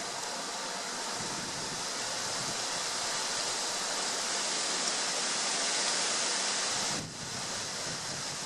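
Strong wind rushing steadily, a loud even hiss that dips briefly near the end.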